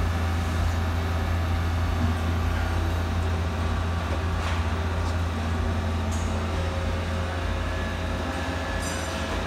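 Mazak SQT 200MSY CNC lathe running, a steady low hum with faint whining tones above it, over the hiss of coolant spraying inside the machine's enclosure.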